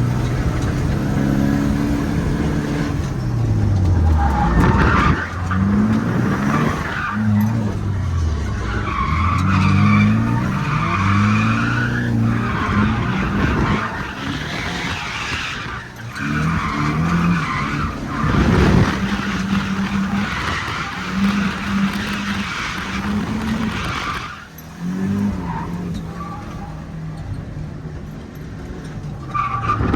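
Drift car's engine revving up and down hard, with tyres squealing through a run of long slides.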